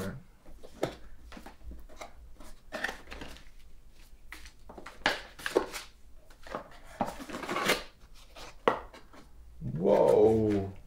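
A cardboard camera box being opened by hand: a paper tab pulled free, flaps lifted and cardboard rustling, with scattered light taps and scrapes. A brief voice sound comes near the end.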